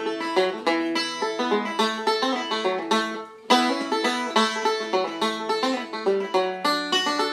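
Five-string resonator banjo played solo in fast bluegrass style with fingerpicks, a rapid stream of bright plucked notes. The notes thin out briefly about three seconds in, then carry on with a strong accented note.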